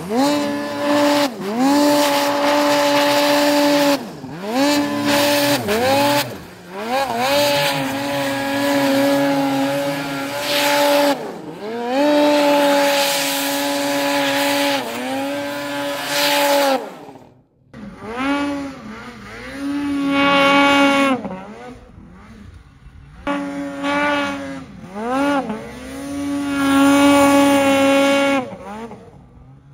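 Snowmobile engines revving hard in deep snow, the throttle held open for a few seconds at a time and then let off, so the pitch climbs and drops again and again.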